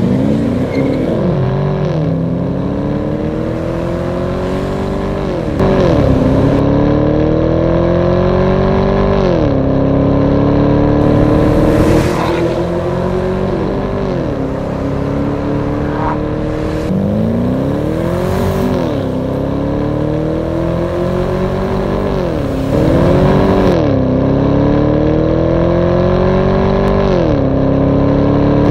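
2012 Camaro's 6.2-litre V8 through an aftermarket exhaust, accelerating hard again and again: the engine note climbs steeply, then falls away slowly, about seven times.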